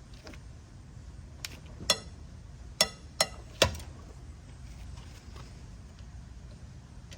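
Steel lug wrench clinking against a wheel's lug nuts as it is pushed on and struggles to seat, about six sharp metallic clinks that ring briefly, the loudest coming close together near the middle. The wrench won't go on easily because the thin decorative caps on the lug nuts are messed up.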